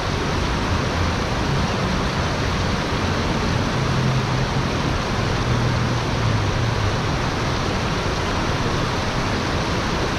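Steady rush of shallow, fast-flowing stream water tumbling over rocks and a small cascade.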